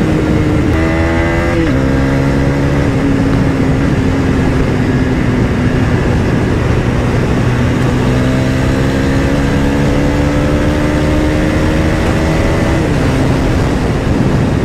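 Motorcycle engine pulling on the move, with wind rushing over the microphone. Its note rises and drops with an upshift about a second and a half in, holds steady, then climbs slowly from about halfway until another upshift near the end.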